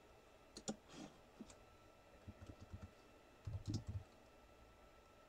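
Faint scattered clicks and soft taps, a few at a time, about a second in and again in the middle: light handling noise.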